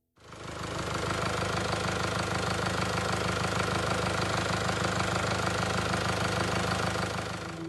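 2017 Mercedes E-Class running with a steady mechanical noise with a fast, even rattling texture, starting abruptly and holding level.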